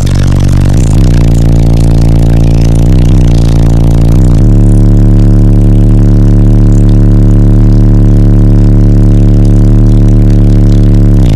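Ten 15-inch PSI Platform 3 subwoofers in a walled-off fourth-order bandpass box playing an ultra-low bass drop at extreme volume. Several deep notes slide down in pitch over the first four seconds or so, then one steady low tone is held. The sound is pinned at the top of the recording's range.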